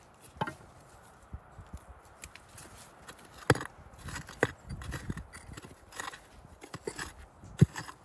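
Hand digging tool scraping and knocking into red clay and rock while digging out quartz crystals: irregular scrapes and sharp knocks, the loudest about three and a half seconds in and again near the end.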